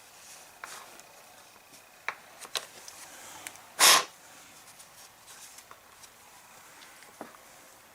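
Small clicks and light handling noises of hands working on a chainsaw's fuel lines and housing, with one short, loud rush of air-like noise about four seconds in.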